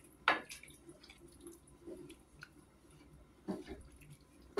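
Light kitchen handling sounds: scattered clicks and knocks of utensils against kitchenware, with a sharper knock about a third of a second in, another about three and a half seconds in, and one at the end.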